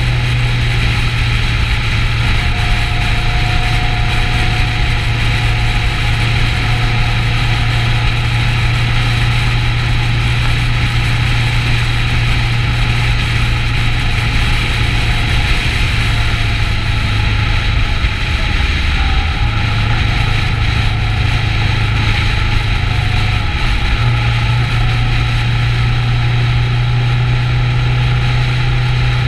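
Kawasaki Ninja 650's parallel-twin engine running steadily at cruising speed under a constant rush of wind. The engine note dips briefly twice in the last third.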